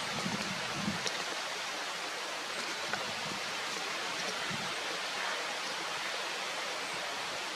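Steady outdoor hiss, like running water, with a couple of faint ticks.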